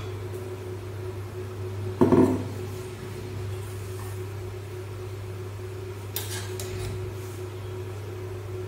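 A metal pot or utensil clanks once about two seconds in, over a steady low hum. A few seconds later faint crackling starts as mustard seeds begin to splutter in the hot oil of the kadai.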